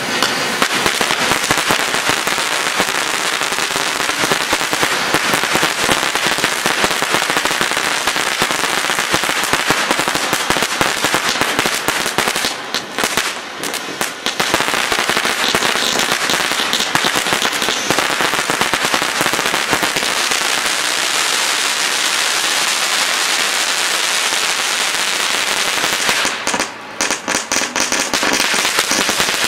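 Ground firework fountains spraying sparks with a dense, continuous hiss and crackle. The spray briefly falters twice, about halfway through and again near the end.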